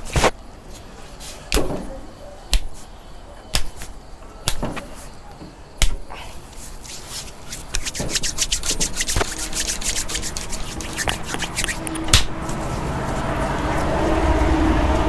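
Hands striking skin during a head and upper-body massage: single sharp slaps about once a second, then a fast run of rapid tapping strokes. A low rumble of a passing vehicle rises near the end.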